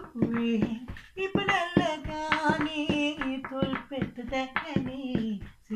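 A man singing a Sinhala love song with no instrument, beating a rhythm with his hands on a soft surface: sharp taps several times a second under the held, bending notes of his voice.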